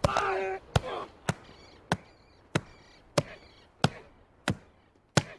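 Repeated blows of a beating, about nine sharp thumps at a steady pace of roughly one every two-thirds of a second. A short shout comes with the first blow.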